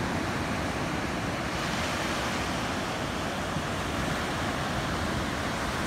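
Ocean surf breaking on the shore, a steady rushing wash of noise.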